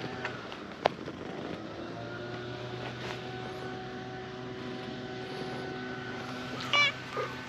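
A distant engine drones steadily, a low hum with several higher tones above it, like a passing aircraft. A single sharp click comes about a second in, and a short pitched call near the end.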